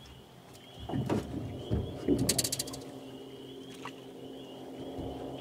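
A few knocks in the aluminum boat, then a short burst of rapid ratcheting clicks from a fishing reel, over a faint steady hum.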